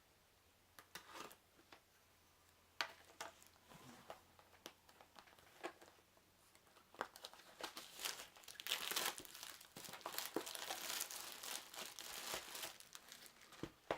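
A sealed box of trading-card booster packs being opened by hand: scattered rustles and taps at first, then from about eight seconds in a dense stretch of crinkling and tearing of the packaging.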